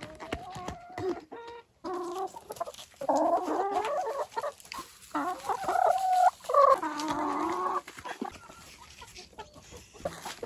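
Hens clucking and squawking in a run of loud, drawn-out calls for several seconds, then dying down near the end.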